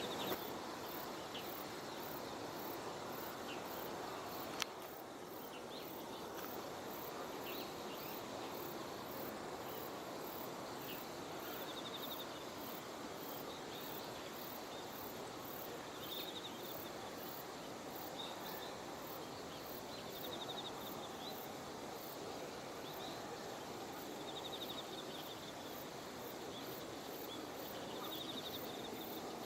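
Autumn insects chirping in the open: a high chirp repeating about twice a second over a steady background hiss, with short trills now and then. A single sharp click comes a few seconds in.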